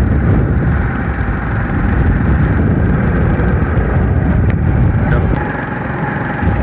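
Motorcycle engine running during a ride along a road, with steady wind rush over the microphone and a short dip in level near the end.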